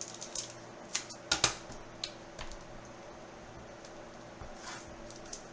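Trading cards and their hard plastic and cardboard packaging being handled: a handful of sharp clicks and taps, the loudest pair a little over a second in, with faint rustling between, over a steady low hum.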